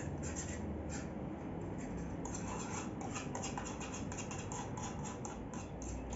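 A utensil scraping against a frying pan as eggs are stirred, in quick, irregular scratchy strokes.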